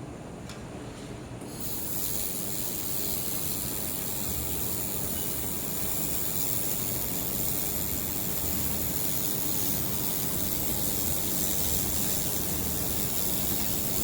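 Handheld laser welder running a continuous weld: a steady hiss switches on about a second and a half in and holds even.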